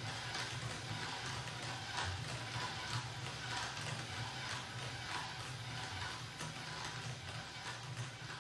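Bearing demonstration rig running: an electric motor driving a good and a poor rolling bearing on one shaft, heard as a steady low hum with irregular faint clicking and rattling.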